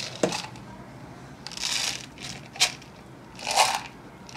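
Close handling noises of hands, clothing and a small plastic jar: short bursts of rustling and scraping, with a sharp click about two and a half seconds in.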